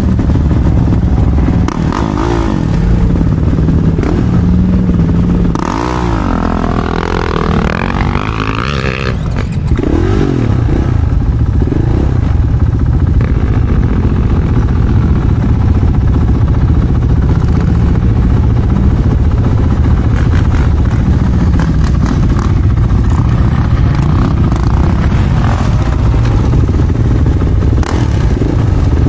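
Dirt bike engines running, with a few revs that rise and fall between about six and ten seconds in.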